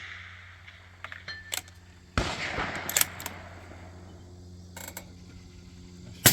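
Rifle shot about two seconds in, its report rolling away across the open range, followed by a couple of smaller sharp cracks, and another rifle shot at the very end.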